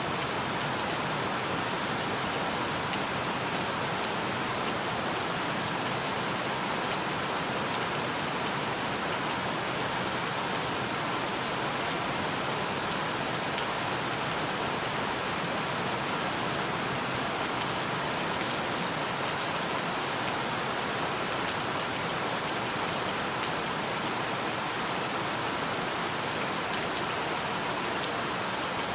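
Steady rain, an even hiss of many drops with faint single drop ticks scattered through it.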